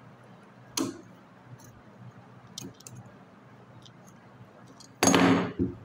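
Screwdriver working at the front of a car AC compressor's clutch plate and pulley: a sharp click about a second in, a few faint ticks, then near the end a louder clatter lasting about half a second, closed by a knock.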